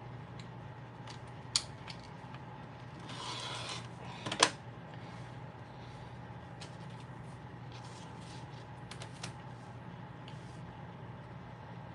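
Rotary cutter and ruler being handled on a cutting mat: a short scraping sound, then a sharp click about four seconds in as the cutter is set down, then lighter taps and clicks, over a steady low hum.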